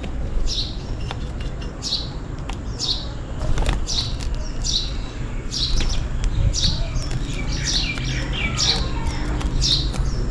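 House sparrows chirping, a steady run of short high chirps a little more than one a second, over a low background rumble.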